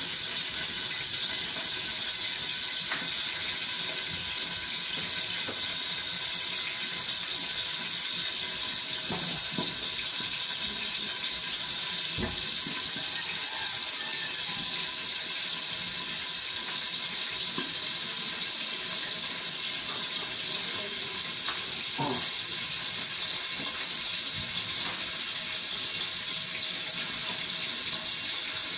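Steady hiss from a gas stove with a covered wok of pinakbet cooking on the flame, with a few faint knocks.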